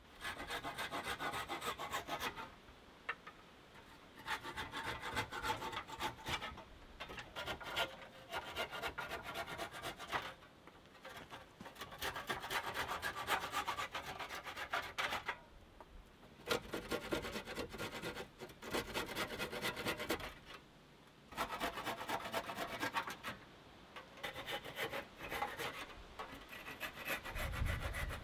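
Hand saw cutting wooden dowel pegs flush with a log frame, in quick back-and-forth strokes. The sawing comes in runs of a few seconds, with short pauses between pegs.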